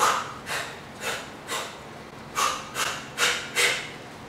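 A woman's short, sharp hissing exhales, one with each shadowboxing punch of a jab–cross–hook combination. There are eight in two groups of four, the second group quicker.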